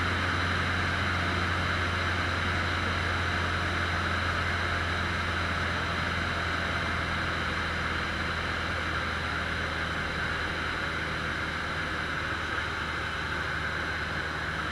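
A Cessna 150's four-cylinder Continental O-200 engine and propeller droning steadily in flight, heard inside the cabin, with a steady hiss over the low drone.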